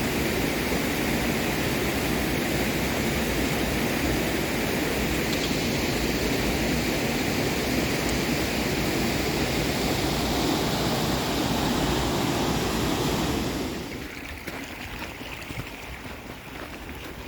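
Rain-swollen mountain river rushing, a steady loud wash of water noise. About fourteen seconds in it becomes much quieter.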